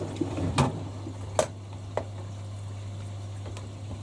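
Domestic washing machines running through a rinse: a steady low hum, with three sharp clicks or knocks in the first two seconds.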